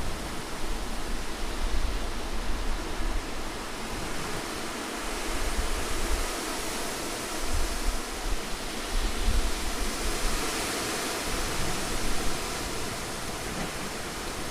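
Wind blowing, a broad steady hiss that swells and eases in gusts, with a low rumble that comes and goes.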